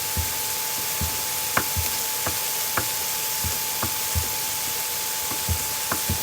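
Knife chopping water chestnuts on a cutting board: irregular knocks about two a second. Under them runs a steady hiss from vegetables frying in the pan.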